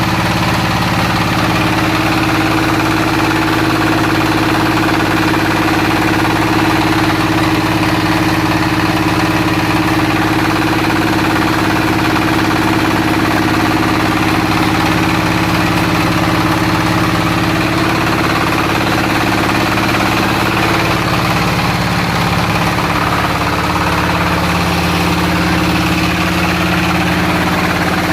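Floating fish-feed pellet extruder machine running steadily, a constant mechanical hum with a low drone.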